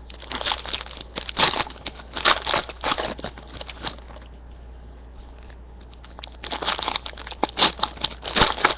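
Foil trading-card pack wrappers crinkling and tearing as packs are handled and opened, in two spells with a quiet pause of about two seconds in the middle.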